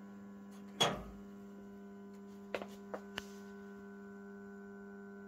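Steady low mains hum from powered-up valve transmitter equipment with a 2,500-volt high-voltage supply. A sharp knock comes about a second in and a few light clicks follow, and the hum stops abruptly near the end.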